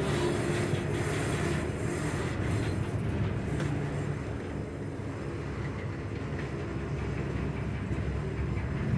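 Diesel freight train running, a steady low rumble with a faint engine drone, easing a little midway and building again near the end.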